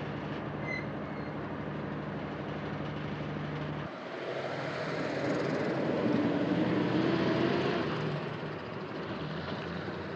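Diesel locomotive hauling the Soyuz rocket on its rail transporter: a steady engine hum with rail noise. About four seconds in the sound changes abruptly to a louder rumble with a wavering hum.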